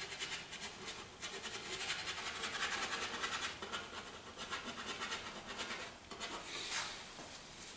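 Paintbrush scrubbing oil paint onto a canvas in quick, short strokes: a dry, scratchy rasp that lays texture into the paint. There is a louder, sharper swish a little before the end.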